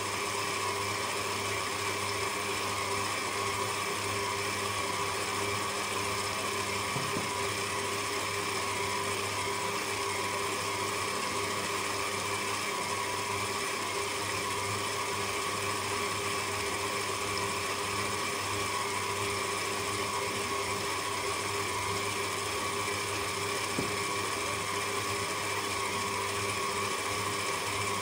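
Kenwood electric stand mixer running at a steady speed, its flat beater turning through chocolate cake batter in the stainless steel bowl, an even motor hum that holds the same pitch throughout, with a faint tap twice.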